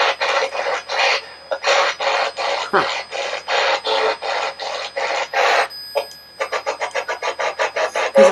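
SB-11 spirit box sweeping through radio stations: a fast, even chopping of static bursts, about five a second, quickening to about seven a second near the end. A brief snatch of broadcast sound with a falling tone comes about three seconds in.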